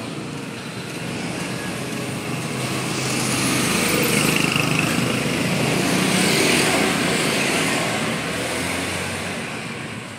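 A motor vehicle passing by: engine and road noise swell to a peak in the middle, then fade away.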